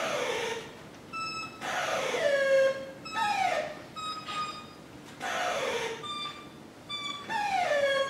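Experimental electroacoustic music: about five falling, sliding tones, each dropping to a lower held note over a burst of hiss, coming roughly every one and a half to two seconds, with short high steady beeps in between.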